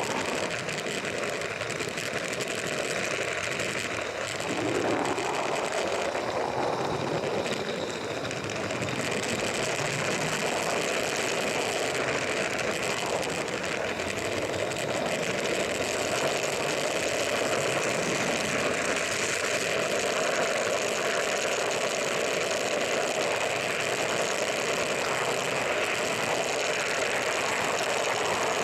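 A 16mm-scale live-steam garden railway locomotive running, a steady mechanical noise that holds even throughout.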